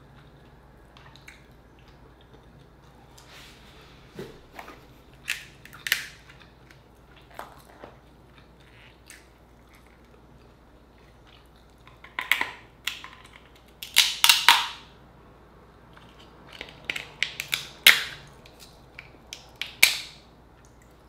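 Cooked Dungeness crab shell being cracked and pulled apart by hand: a run of sharp cracks and snaps, loudest in a cluster about two-thirds of the way through and again near the end.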